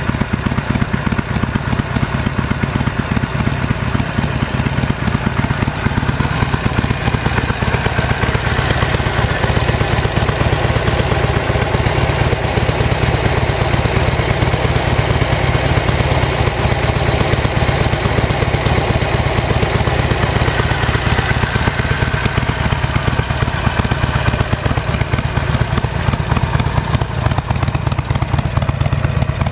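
2009 Harley-Davidson Sportster 1200's air-cooled V-twin engine idling steadily.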